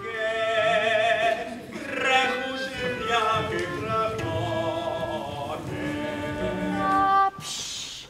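Music with operatic singing: long held notes with a wavering vibrato that change pitch every second or so. It breaks off near the end into a brief hiss.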